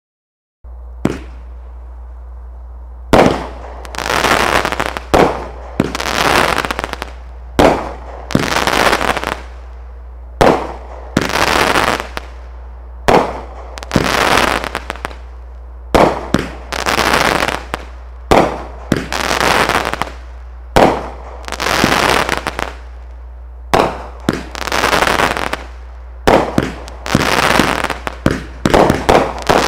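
Brothers "Jaws" 350 g firework cake firing about two dozen shots, one every second or so, starting about a second in. Each shot is a sharp bang followed by about a second of hissing, over a steady low hum.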